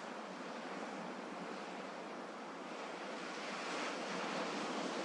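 Gentle sea waves washing on a shore, a steady surf sound that swells slightly about three seconds in.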